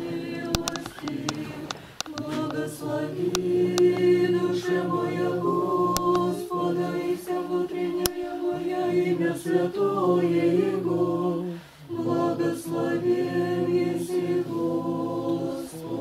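Unaccompanied Orthodox church singing: a group of voices holding long notes, with short breaks about two seconds in and again near twelve seconds.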